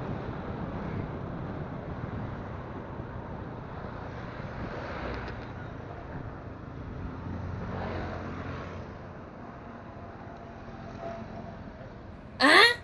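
Motorcycle ride heard on board: steady engine and road noise with some wind. Just before the end there is a short, loud squeal that rises sharply in pitch.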